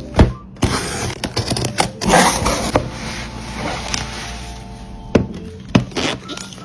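A package being opened by hand: a sharp knock, then two stretches of rustling or tearing of the wrapping, and two sharp clicks near the end.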